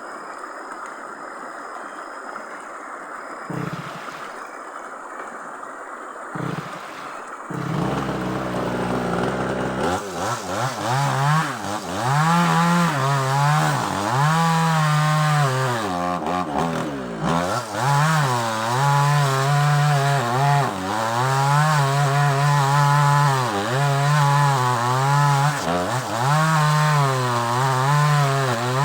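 A small chainsaw's two-stroke engine starts about seven and a half seconds in after two short sounds, runs steadily for a moment, then revs up and down again and again as it cuts through sengon wood.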